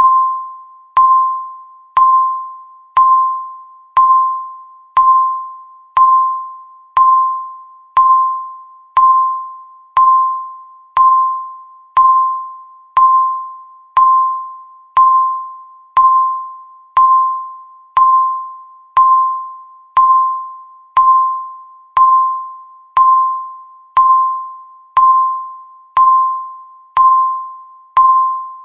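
Countdown timer beeping once a second: a single mid-pitched tone, struck sharply and fading away before the next, repeating evenly.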